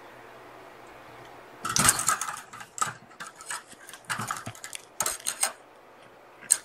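Kitten claws scrabbling, scratching and clicking against the camera and the wire pen right at the microphone, in irregular bursts that start about two seconds in, over a faint steady hum.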